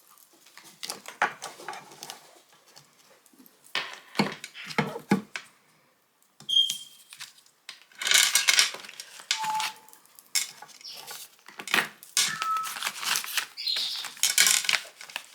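Small hard objects being handled and set down: irregular clicks, clatters and rustling, busiest in the second half.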